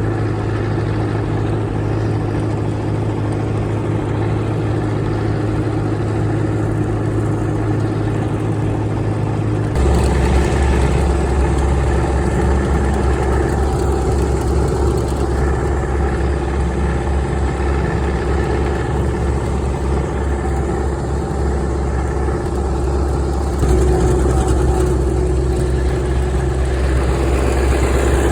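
Old New Holland Clayson M122 combine harvester's engine running steadily under way. Its note changes abruptly and gets louder about ten seconds in, and again near the end.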